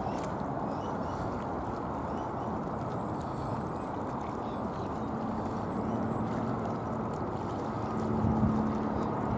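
Jet airliner engines: a steady low rumble, with a humming tone coming in about halfway through and growing louder near the end.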